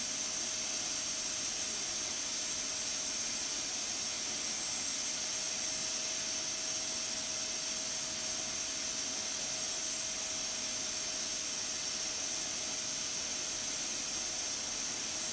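Aluminium pressure cooker on the stove hissing steadily as steam escapes from its pressure valve, with a faint steady tone under the hiss: the cooker is up to pressure and cooking.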